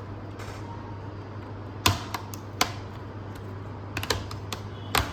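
Plastic bottom panel of a Dell Vostro 3420 laptop being pried off, its snap clips letting go as a series of sharp clicks, about eight in two clusters, over a steady low hum.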